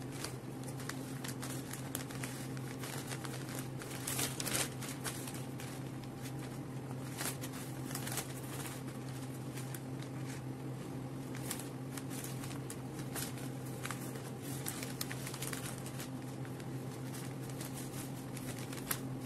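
Wrapping paper rustling and crinkling in irregular handling bursts as it is folded around a bouquet, over a steady low hum.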